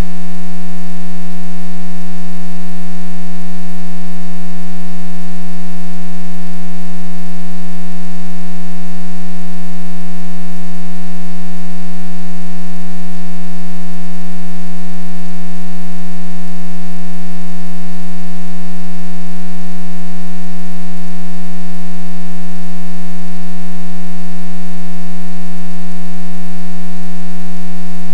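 Loud, perfectly steady electrical hum: one low pitch with a long series of overtones that never changes.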